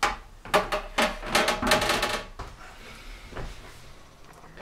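Plastic parts of a dishwasher drawer being handled, a quick run of clicks and rattles for about two seconds, then one fainter knock a little over a second later.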